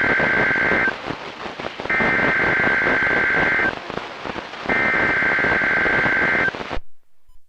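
Emergency Alert System (SAME) data header over a NOAA Weather Radio broadcast. Raspy two-tone digital bursts about two seconds long repeat with radio static between them: the end of one burst, then two more. The signal cuts off suddenly near the end.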